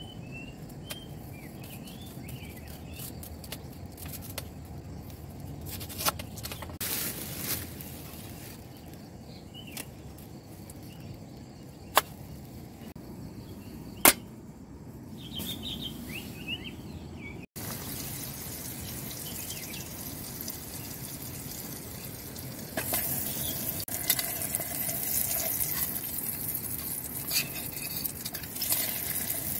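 Kitchen knife slicing an onion on a wooden cutting board, with a few sharp knocks and birds chirping in the background. After a cut, a steady hiss sets in from a gas camp stove under an aluminium cooking pot.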